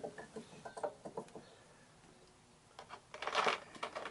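Clicks and light knocks of an ignition coil and its leads being handled and fitted to a motorcycle frame, with a louder scraping rustle about three seconds in.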